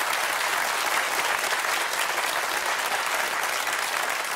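Studio audience applauding steadily, a dense, even clapping from many hands.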